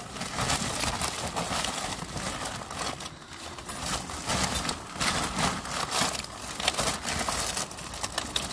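Rummaging through a box of belongings: plastic crinkling and rustling, with irregular small clicks and knocks as items are picked up and moved.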